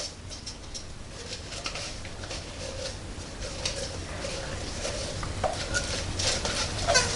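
Onions being shaken and knocked out of a clear container into a glass mixing bowl: a run of irregular small taps, clicks and rattles.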